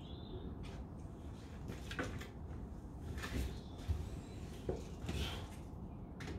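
A handful of separate knocks and clicks, about six over several seconds, against a faint background hiss. No engine is running yet.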